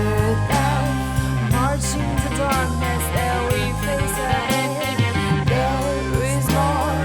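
Psychedelic rock band playing: a steady drum beat over a held bass line, with a melodic line bending in pitch above it from guitar or voice.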